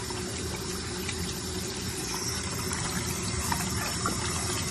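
Thin stream of running water pouring and splashing steadily over a white-faced capuchin monkey drinking from it, with a few small splashes in the second half.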